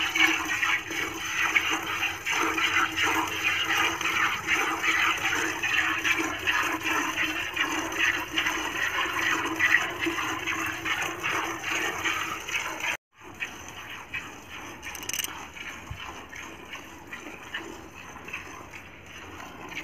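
Milk squirting by hand from a cow's teats into a plastic bucket: a steady rush of rapid squirts as the hands work in turn. About thirteen seconds in it cuts off sharply and returns quieter.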